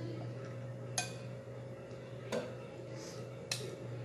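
Three light clicks of a spoon against a bowl, a second or so apart, over a steady low hum.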